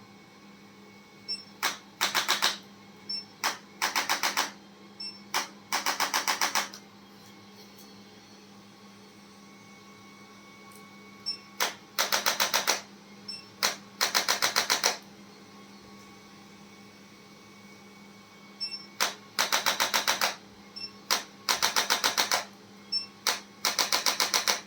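Handheld chiropractic adjusting instrument firing rapid series of clicking thrusts, about ten a second, in eight short bursts of a second or so with pauses between them.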